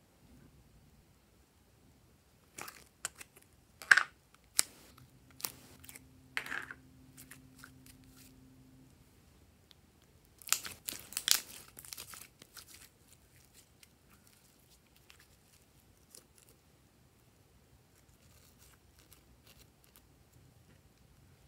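A plastic capsule ball being opened with a string of sharp clicks and snaps. A few seconds later comes a dense burst of sticky crackling as glossy slime is pulled out of it and handled.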